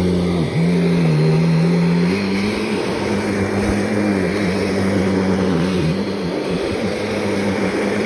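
Kirby G5 upright vacuum cleaner running on a shag rug with a steady motor hum. Its pitch drops about half a second in and stays lower for a second and a half before settling back.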